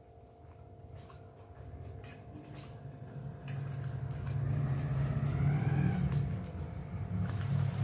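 Close-miked eating: chewing, with scattered clicks of a utensil on a plate, louder in the second half.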